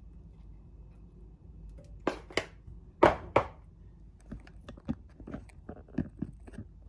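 A metal spoon knocking against a glass bowl as ground flaxseed is tipped off it: four sharp knocks in two pairs, about a second apart, then a run of lighter clicks and taps.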